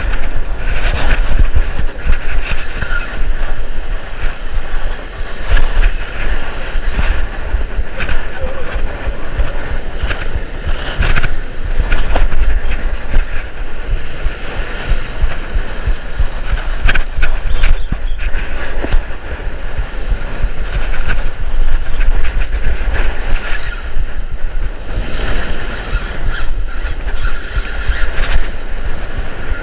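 Strong wind buffeting the microphone over surf breaking and washing against rocks, a loud steady rumble and hiss.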